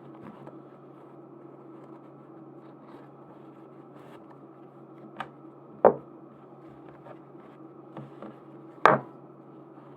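Handling sounds: a few sharp taps and knocks as objects are set down and moved on a hard surface, the loudest about six and nine seconds in, over a steady low hum.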